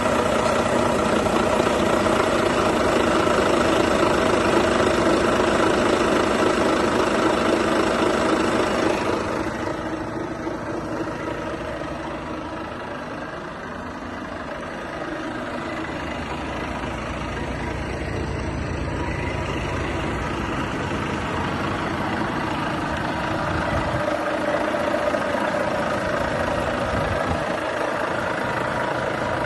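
Renault T480's 13-litre six-cylinder diesel engine idling steadily. About nine seconds in the sound drops and turns duller, then slowly grows louder again toward the end.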